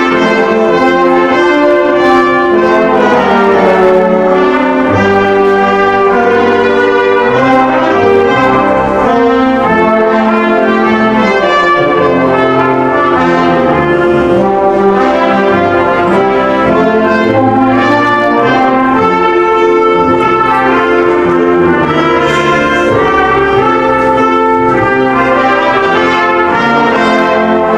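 Brass ensemble playing in harmony, several instruments holding and changing chords.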